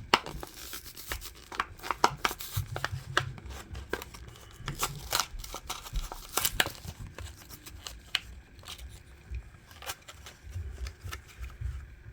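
Handling of toy cars and their plastic packaging: irregular sharp clicks and snaps with crinkling, like a blister pack or box being opened.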